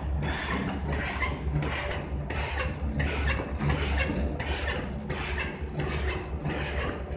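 Flatbed label die-cutting machine running, its press cycling in a steady rhythm of strokes a little under two a second over a low motor hum as the label web feeds through.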